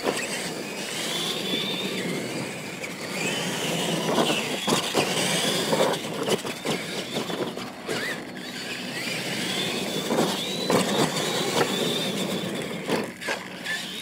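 Radio-controlled monster trucks racing on dirt: high-pitched electric motor whine that rises and falls as the trucks speed up and slow. Several thumps come through as they land off the jumps.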